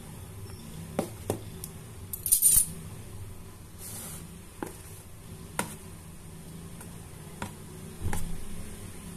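Steel spoon clinking and scraping against a plastic box while chicken pieces are turned in flour: scattered single clinks, with a louder scraping rattle a little over two seconds in.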